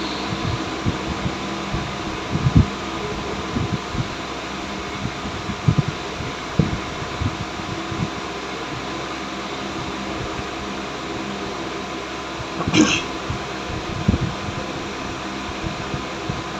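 Steady mechanical hum with several constant tones, broken by irregular low thumps and one brief sharper noise near the end.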